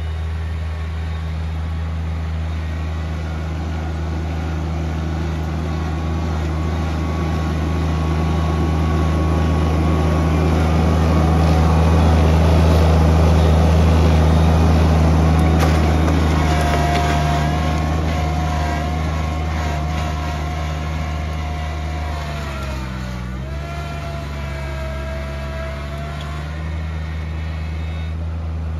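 John Deere 2305 subcompact tractor's three-cylinder diesel running under heavy load as it pulls a single-bottom 14-inch moldboard plow through soil, growing louder as it passes close by about halfway through. A steady whine rides over the engine in the second half. A little past two-thirds of the way in, the engine and the whine sag briefly in pitch as the plow bogs the engine down, then recover.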